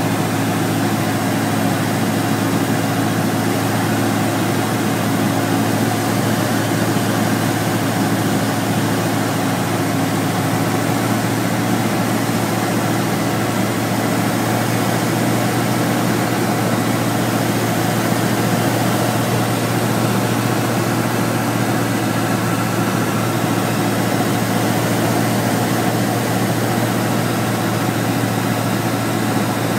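Robin DR400's 108 hp piston engine and propeller running with a steady drone, its pitch shifting slightly about eleven seconds in as the power setting changes.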